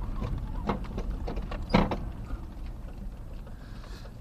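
A Toyota being towed over a rough dirt track: a steady low rumble of road and wind noise with scattered knocks and rattles. The loudest clunk comes a little under two seconds in.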